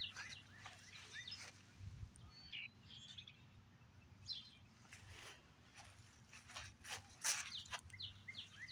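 Faint bird chirps scattered through a quiet outdoor background, with a few soft clicks and rustles.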